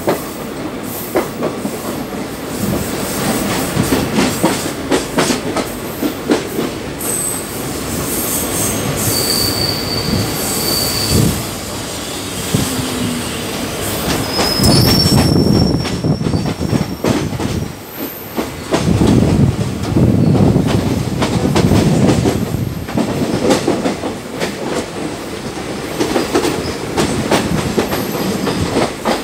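Moving passenger train heard from its open door: wheels rumbling and clattering over rail joints, with high-pitched wheel squeal on curving track. The squeal comes as a couple of sustained whines about a third of the way in and around the middle, with shorter, higher squeaks later.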